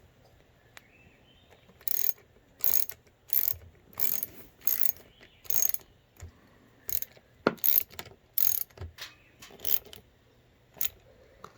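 Ratchet wrench with a 10 mm socket clicking through about a dozen strokes, tightening the bolt that clamps the new lever perch on the dirt bike's handlebar.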